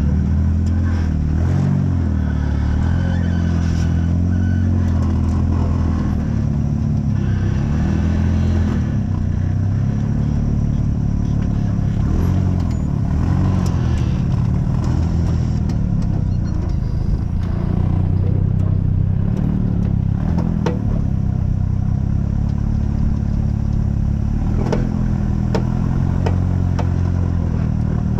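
Off-road vehicle engine running while driving, its pitch rising and falling with the throttle, with a few sharp knocks and rattles.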